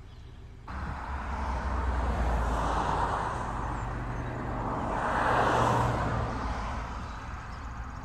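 Road traffic: cars passing, a wash of tyre and engine noise that swells twice, about three and five and a half seconds in, over a low rumble.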